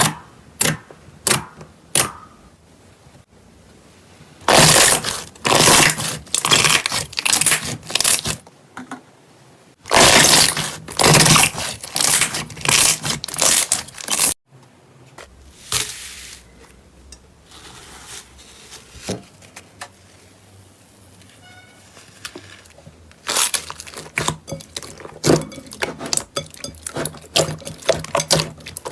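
Slime being squeezed and pressed by hand, giving crisp clicking pops and crunchy crackling in bursts, with quieter stretches between.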